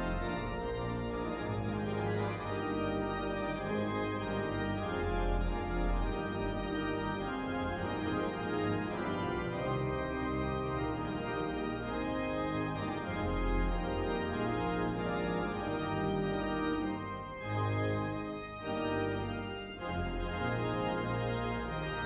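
Church organ playing full, sustained chords over deep bass notes, with a few brief breaks between chords about three-quarters of the way through.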